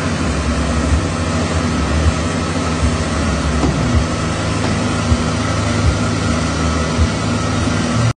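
Small tracked carrier's engine running steadily, with a few short clunks spread through. The sound cuts off suddenly at the very end.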